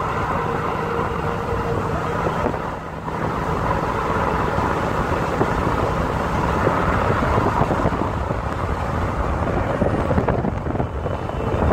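Steady rush of wind and road noise from a phone held out of the window of a moving RAM 2500 pickup towing a trailer, with the truck's engine and tyres running underneath.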